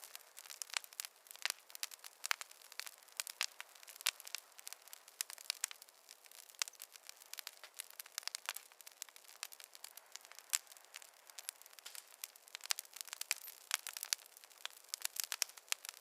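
Wood fire crackling in a fireplace: constant irregular sharp pops and snaps over a faint hiss, with no low rumble.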